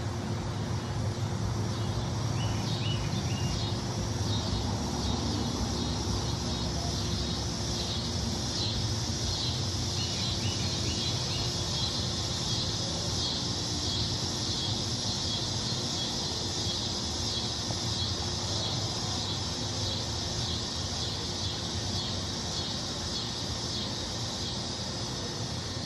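Outdoor ambience: a steady high-pitched chirring, with a few short high chirps twice and a low rumble underneath.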